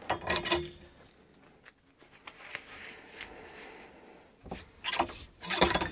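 Cleaning rod with a folded paper patch on its jag being pushed down a shotgun barrel: dry rubbing and scraping of the patch in the bore, with louder handling noises near the start and near the end.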